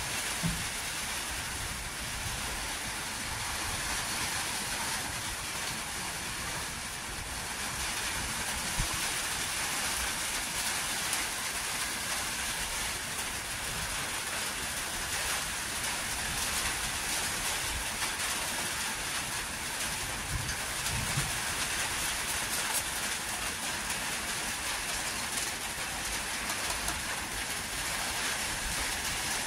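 Steady heavy rain, an even, unbroken hiss.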